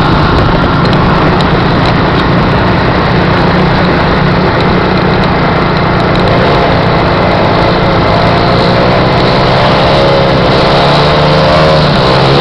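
Honda Fan single-cylinder motorcycle engine running hard. From about seven seconds in, the engine speed rises and falls repeatedly.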